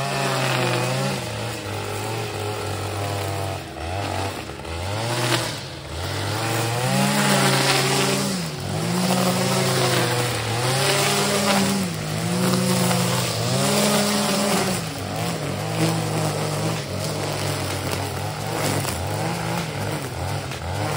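Husqvarna 545RX two-stroke brushcutter fitted with a trimmer-line head, running at cutting speed as it trims weeds from between brick paving stones. The engine pitch rises and falls every second or two as the head is swept back and forth.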